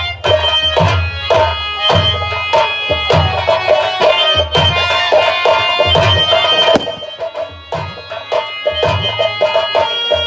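Live folk-theatre accompaniment: a harmonium holding sustained notes over a hand drum playing a steady rhythm with deep bass strokes. The drumming thins out and the music dips in loudness about seven seconds in, then picks up again.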